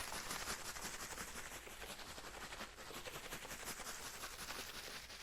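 Water bottle being shaken continuously, the water sloshing with a steady, rapid, hissy rattle. It is panned binaurally in 8D audio so it circles around the listener's head.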